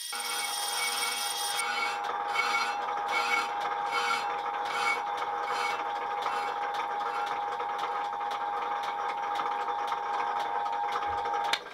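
Lathe cutting tool skimming the face of a spinning cast-iron Jeep Cherokee XJ front brake disc on a South Bend lathe: a steady scraping rasp with a high ringing tone running through it. It pulses about twice a second for the first few seconds and stops with a sharp click near the end.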